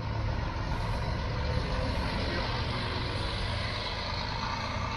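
Double-decker diesel coach driving past and pulling away, its engine a steady low drone under an even road hiss.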